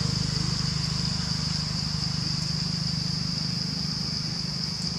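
Steady outdoor background: an even, high-pitched drone over a low steady hum, with no distinct calls or knocks.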